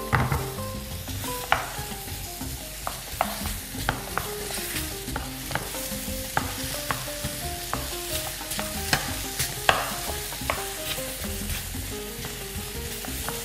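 Melon chunks sizzling as they fry in a pan on a gas flame, while a spatula stirs them and clicks irregularly against the pan.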